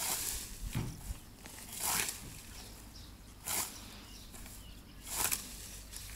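Hand scythe mowing tall, fresh green ryegrass: four separate swishing cutting strokes, one about every one and a half to two seconds.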